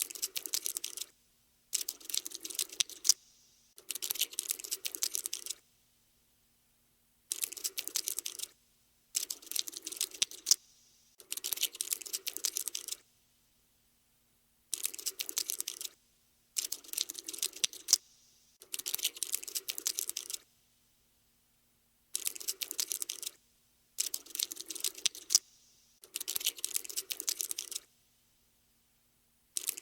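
Cockroach scuttling sound effect: bursts of rapid dry clicking and tapping, each one to two seconds long, coming in groups of three with short silences between them.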